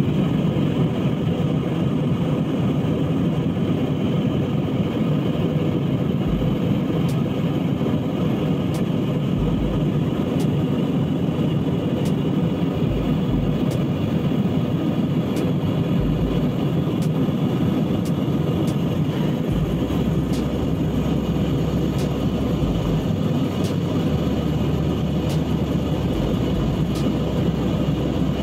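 Steady cabin noise of an Airbus A320-200 in flight: jet engines and rushing airflow heard from inside the passenger cabin by a window seat.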